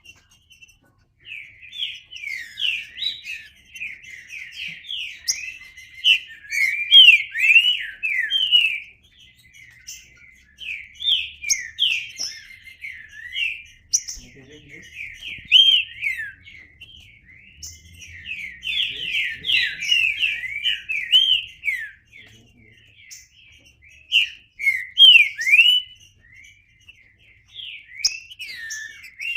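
Green-winged saltator (trinca-ferro) singing: phrases of quick, sliding whistled notes, repeated with short pauses between them.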